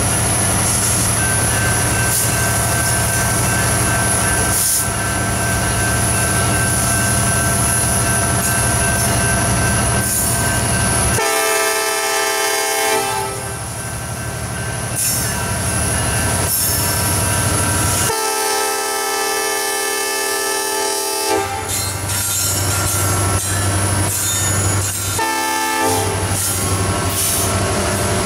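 Norfolk Southern diesel freight locomotive passing close, its air horn sounding a grade-crossing pattern: two long blasts, a short one, then another long one starting near the end. Under it, the heavy rumble of the locomotives' engines and wheels on the rail.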